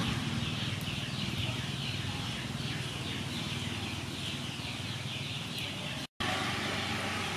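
A bird calling in quick repeated short falling notes over a low steady hum. The sound cuts out for a moment about six seconds in.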